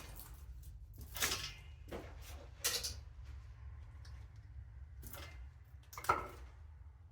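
A few sharp clicks and clattering knocks from tools being handled, the loudest near the end, over a steady low hum.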